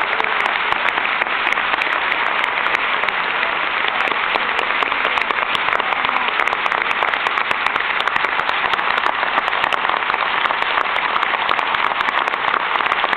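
Large audience applauding steadily, a dense, sustained clapping, with hands clapping close by.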